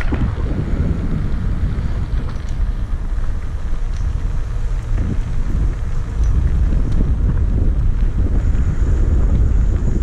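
Wind buffeting a moving camera's microphone: a loud, steady low rumble, a little stronger in the second half.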